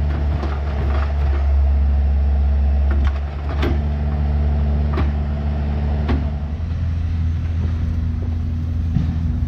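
Diesel engine of a piece of heavy equipment running steadily under work, with a few sharp metal clanks. Its pitch drops a little about two-thirds of the way through.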